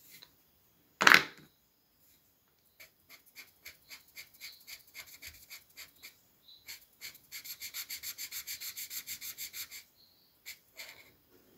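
Felt-tip marker rubbing back and forth on paper as a shape is coloured in, in quick even strokes that speed up to about six or seven a second near the middle and stop shortly before the end. A single sharp click, the loudest sound, comes about a second in.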